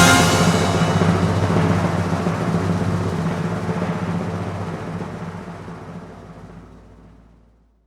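Soundtrack music ending on a final drum hit whose ringing fades away gradually, dying out shortly before the end.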